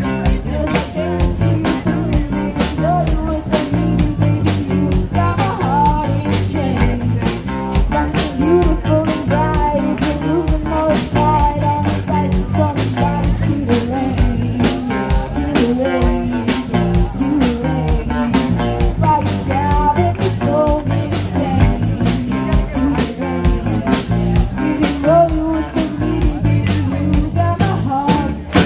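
Live rock band playing through the PA: drum kit keeping a steady beat under bass and electric guitar, with a woman singing lead.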